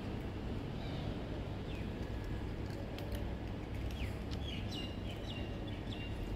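Steady low outdoor rumble with a small bird chirping short high calls, a few early on and a run of them in the second half.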